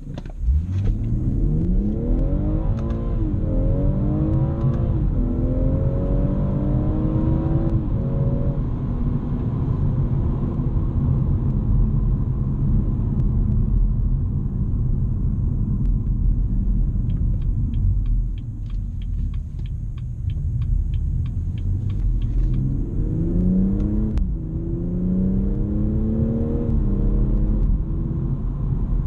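BMW M240i's turbocharged 3.0-litre straight-six pulling hard from the start, revs climbing through several quick upshifts, then settling into a steady cruise over low road rumble. Midway there is a run of even ticks, about four a second, and near the end the engine pulls hard again through a couple of upshifts.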